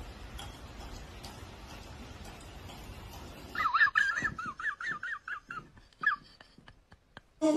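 Low room noise, then a little over halfway in a high trill that wavers rapidly up and down in pitch for about two and a half seconds, followed by several sharp clicks.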